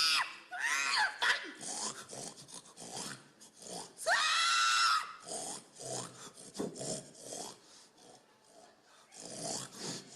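Pig squeals and grunts: short high squeals at the start and about a second in, a longer squeal around the middle, and many short grunts in between, quieter near the end.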